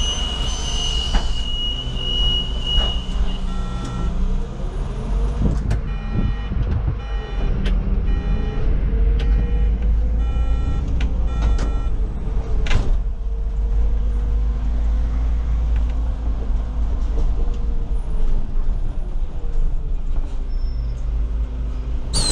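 Solaris Urbino 18 articulated city bus running, heard from inside: a steady low engine rumble with a tone that slowly rises and falls as the bus moves. A steady high beep sounds for the first few seconds, and a row of regular ticks follows in the middle.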